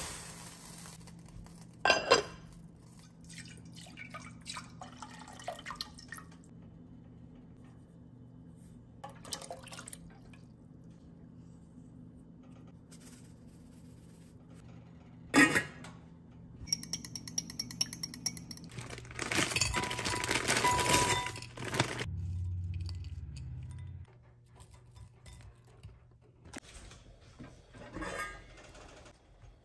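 Kitchen sounds of cooking on an electric coil stove: a metal saucepan set down, sharp clinks of pots and utensils, and about halfway through a run of rapid clicks from a pepper mill grinding black pepper, followed by a louder noisy stretch. Near the end a stainless steel pot lid clinks as it is lifted.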